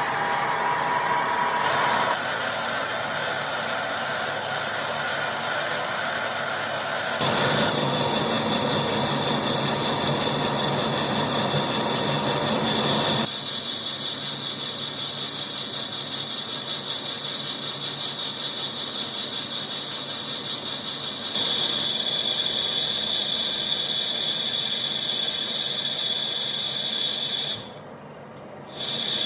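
Colchester Master 2500 lathe taking turning and facing cuts on a cast billet with a CNMG carbide insert: steady running and cutting noise with a high-pitched whine. The sound changes abruptly several times and dips briefly near the end.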